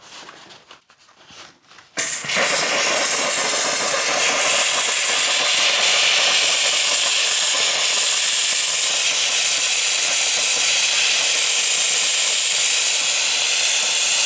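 Handheld 4-bar steam cleaner jetting steam onto soot-stained stonework: a loud, steady hiss that starts suddenly about two seconds in and holds evenly.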